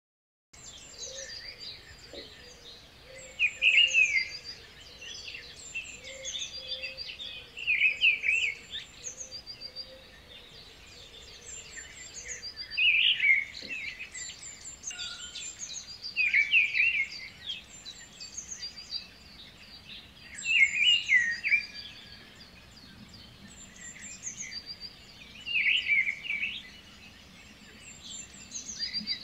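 Birds singing: a loud song phrase repeats every four to five seconds, with softer high chirps between.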